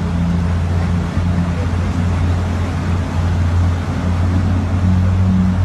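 Fast-flowing floodwater rushing, over a steady low drone that shifts up slightly near the end.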